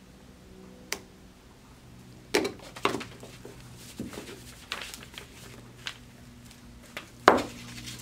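Small flush cutters snipping at polyurethane tubing on a brass barbed fitting, with handling sounds: a series of short, sharp clicks and crackles at uneven intervals, the loudest a sharp knock near the end.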